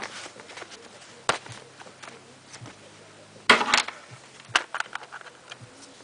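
Hard plastic clicks and knocks from paintball goggle parts being handled as the right-side strap fitting is twisted and pushed out through the frame, with a louder burst of clatter about three and a half seconds in.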